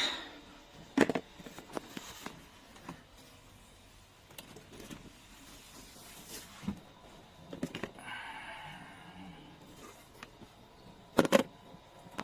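Scattered clicks and knocks of objects being handled, with a louder knock about a second in and a pair of louder knocks near the end.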